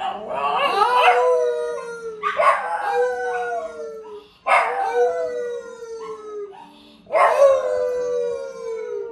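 A small dog howling: four long howls about two seconds apart, each jumping up at the start and then sliding slowly down in pitch.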